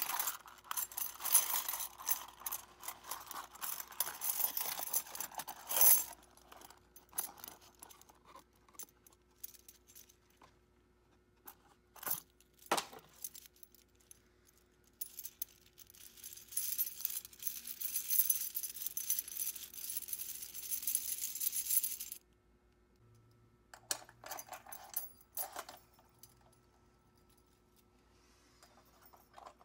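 Loose metal key blanks clinking and jangling as they are handled, in two spells of several seconds each, with a few single clicks between and after.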